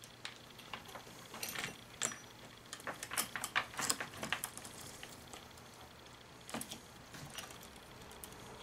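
Chainsaw chain on an Echo CS-330T clinking and rattling as it is looped around the bar by hand: a run of light metallic clicks, busiest a couple of seconds in, then a few more later.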